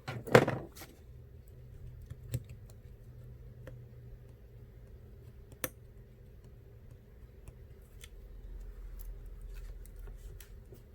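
Small clicks and taps from handling an iPhone's parts and small repair tools: a short clatter about half a second in, then a few sharp single clicks spread out, with fainter ticks near the end.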